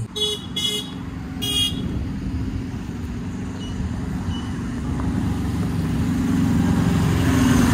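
A motor vehicle's engine running and drawing closer, growing louder over the last few seconds, with three short horn toots in the first two seconds.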